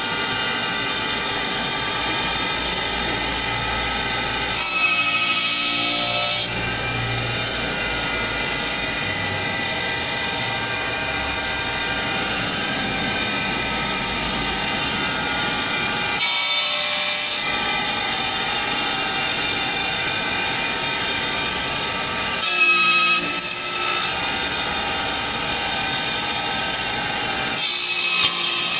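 CNC wood lathe's spindle cutter machining a curved wooden leg blank: a steady machine whine over cutting noise. It briefly changes and swells a few times, loudest about five seconds in and again past twenty seconds.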